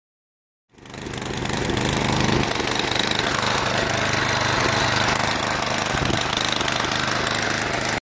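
Small gas engine of a PowerPro snow blower running steadily. It comes in about a second in and cuts off abruptly near the end.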